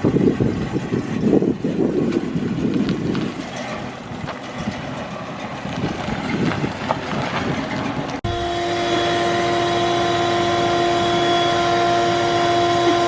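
Ford Mustang fastback's engine running and pulling away, its note rising and falling unevenly with the throttle. About eight seconds in, the sound cuts off abruptly and is replaced by a steady, even machine drone with a constant high tone.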